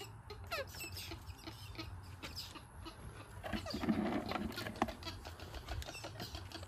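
Animal calls over scattered clicks and taps: a short falling chirp about half a second in and a rougher, lower call about four seconds in.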